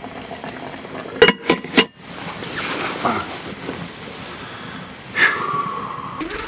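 Three quick metal knocks, a lid being set on a camping cook pot, then the steady hiss of a small gas camping burner heating the covered pot. A brief steady tone sounds a little after five seconds.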